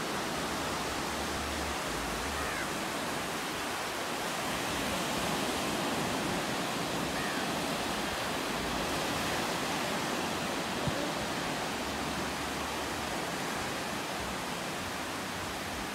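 Steady rush of small waves breaking and washing up a sandy beach, an even hiss without a break.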